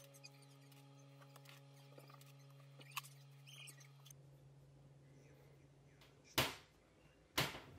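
Faint, sparse clicks of hand cutters snipping silver wire over a low hum, then two short, louder scraping sounds about a second apart near the end.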